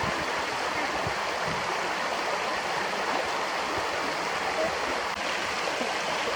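Stream water running steadily over its bed.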